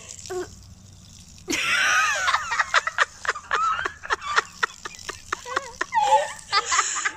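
A person laughing hard in quick, breathy bursts, starting about a second and a half in and carrying on to the end.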